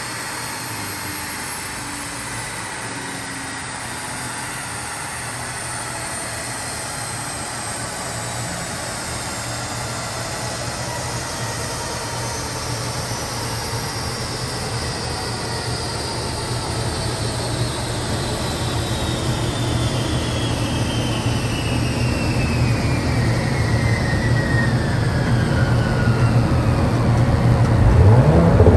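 Tuned Audi S4 B9's turbocharged V6 running under load on a rolling-road dyno, the drone of engine and rollers growing gradually louder over the half-minute. A thin high whine slides slowly and steadily down in pitch throughout, and a rising engine note starts right at the end.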